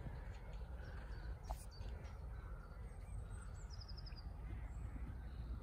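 Wind noise on the microphone with wild birds calling in the background, including a short, fast, high trill about two-thirds of the way through.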